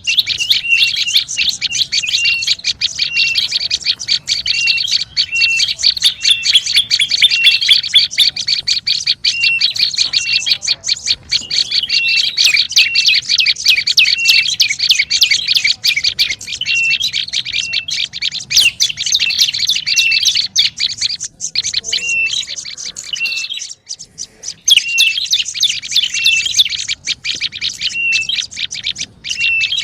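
Prenjak lumut songbird calling in a rapid, agitated stream of high chirps. A short note repeats about twice a second over dense twittering. There is a brief break about two-thirds of the way through.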